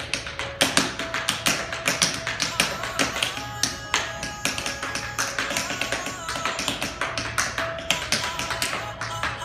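Metal taps on tap shoes striking a hard floor in quick, rhythmic tap-dance patterns, many sharp clicks a second, over background music.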